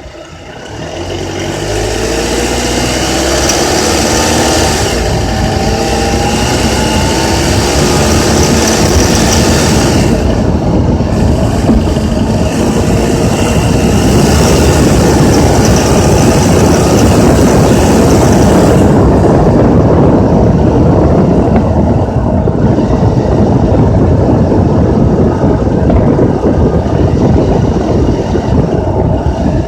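Honda Accord's K24Z3 2.4-litre four-cylinder engine revving up over the first couple of seconds and then held at raised revs, around 2200–3000 rpm, the range where it makes a rattling noise.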